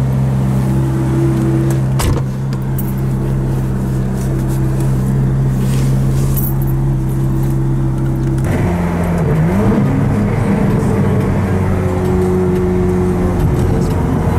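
Ferrari F430's V8 through a Capristo aftermarket exhaust, heard from inside the cabin: idling steadily, with one sharp click about two seconds in. About eight seconds in it grows louder and rises and falls in pitch as the car pulls away.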